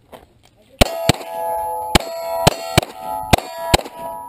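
Seven rapid pistol shots from a Glock, spread over about three seconds, with the steel target plates ringing after the hits.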